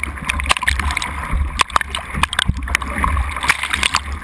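Whitewater rushing and splashing over a longboard surfboard as it rides a wave, heard through a GoPro housing mounted on the board, with a steady low rumble of water and wind buffeting and many sharp spatters of water striking the housing.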